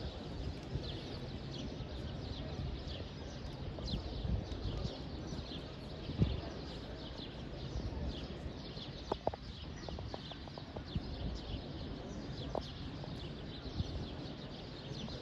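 Many birds chirping: rapid short chirps that slide down in pitch and repeat throughout, over a steady low rumble of outdoor background noise.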